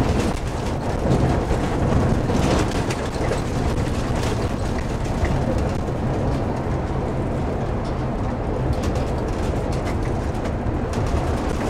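Steady engine and road noise heard from inside a moving vehicle's cab, a low drone with the hiss of tyres on the road and a few light rattles.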